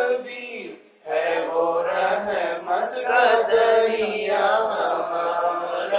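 Group of male voices chanting an Urdu naat together in a slow, melodic line, with a brief breath pause about a second in.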